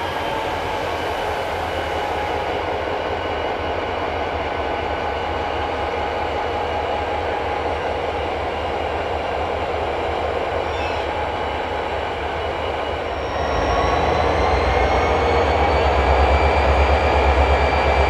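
Pair of Illinois Central diesel-electric locomotives rolling slowly by, their engines running steadily. About 13 seconds in, the engines get louder and their pitch climbs gradually as they throttle up.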